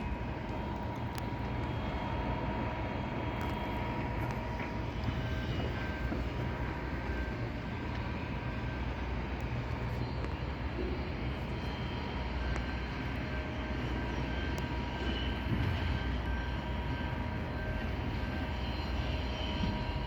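Steady low mechanical rumble with a constant whine through it and a few light clicks.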